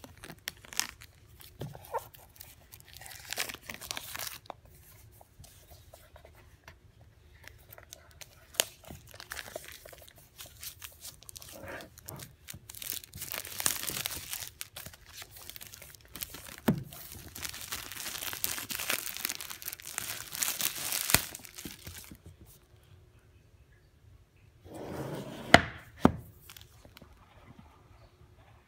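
Plastic shrink wrap being torn and peeled off an Apple Watch retail box, crinkling in bursts with small clicks, the longest stretch of crinkling in the middle. Near the end comes a brief rustle with a sharp knock, the loudest sound, as the cardboard box is handled.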